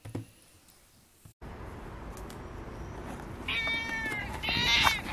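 Domestic cat meowing: two short, high-pitched meows, the first about three and a half seconds in and the second just before the end, over a steady low background hiss.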